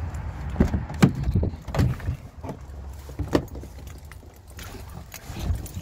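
A vehicle's low, steady rumble with about six clunks and rattles over the first three and a half seconds and one more near the end.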